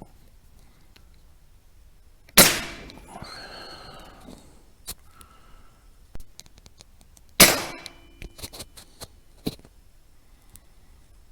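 Two rifle shots about five seconds apart, each a sharp crack with a short decay, followed by a few lighter clicks.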